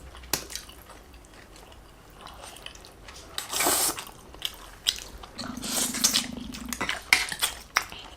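Close-miked eating sounds of spaghetti and meatballs being eaten: chewing and slurping, with scattered small clicks.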